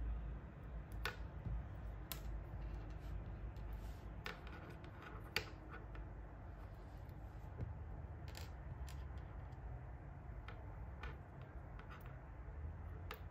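Light, irregular plastic clicks and snaps from the jointed plastic parts of a Dummy 13 action figure being flexed and popped apart by hand.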